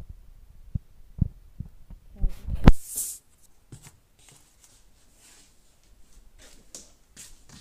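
Handling noise from a plastic food container being picked up and moved on a countertop: a series of soft thumps and knocks, the loudest about two and a half seconds in, then a short rustle and a few faint clicks.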